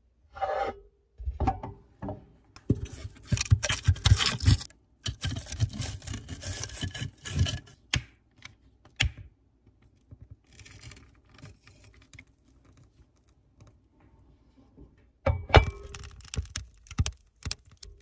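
Handling noise close to the microphone: hands scraping, rubbing and knocking around it in irregular bursts, with a few sharp clicks, fainter rustling in the middle and a loud flurry again near the end.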